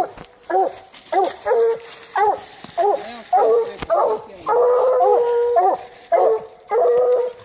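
Coonhounds barking in short, quick, repeated barks, about two a second, broken twice by a long drawn-out howled note.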